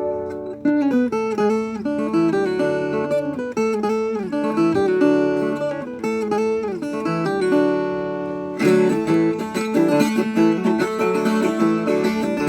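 Viola caipira, the Brazilian ten-string folk guitar, playing an instrumental introduction with no singing. It opens on a ringing chord, moves into picked melodic runs in two-note harmony, and about three-quarters of the way in changes to a steady strummed rhythm.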